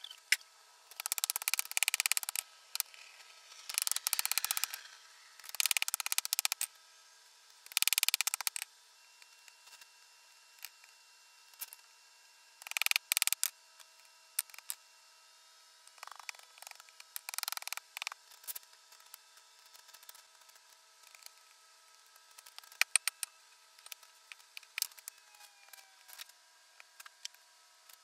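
Loose gravel and dirt scraped and scooped out of a hole by hand: four scrapes of about a second each in the first nine seconds, then scattered clicks and short clatters of stones.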